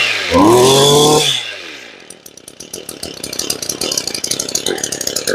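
Used Japanese 26 cc two-stroke brush cutter engine blipped on the throttle. It revs up sharply, holds for about a second, then winds down and settles into a fast, even idle. The quick rise and fall shows a very responsive throttle.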